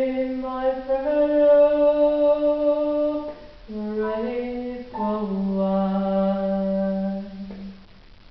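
Electronic keyboard playing a slow melody in long held notes, in two phrases with a short break about three seconds in; the last low note stops just before the end.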